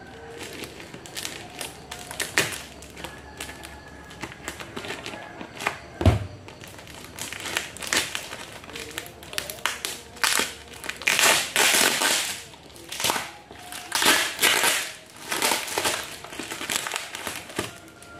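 Scissors cutting and hands tearing clear packing tape and plastic wrapping off a cardboard parcel: irregular crinkling, rustling and ripping, busiest and loudest in the second half. A dull thump about six seconds in.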